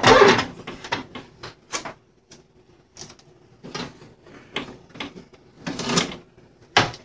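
Hard plastic clicks, knocks and scrapes from handling the parts of a Keurig K55 coffee maker, in irregular bursts that are loudest right at the start.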